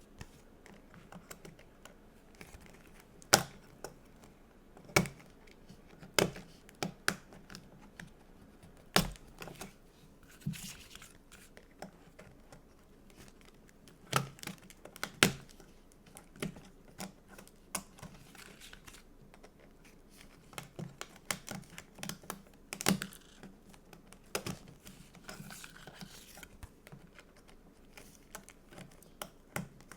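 Stickers and a sticker book being handled: irregular sharp taps and clicks, with a few short tearing and crinkling sounds in between.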